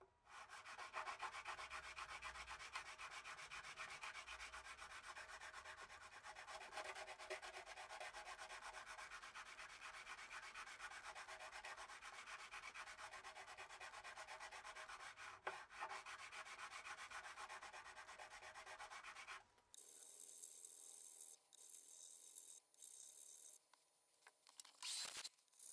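A StewMac Z-File crowning file scraping over guitar frets in rapid back-and-forth strokes, rounding the tops of the levelled frets. About 20 seconds in it changes to a thinner, hissier scrape broken by short gaps.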